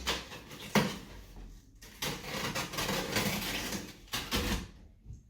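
A cardboard delivery box being handled: two sharp knocks, then a few seconds of rustling and scraping that stops near the end.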